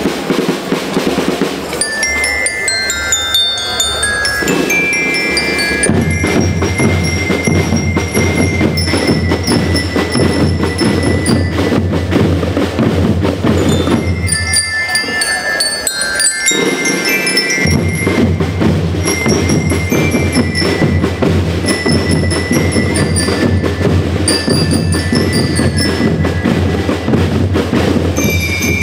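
School rhythm band playing: bell lyres ring out a quick melody over snare drums and bass drums. Twice the drums drop away, leaving the lyres almost alone, then come back in full.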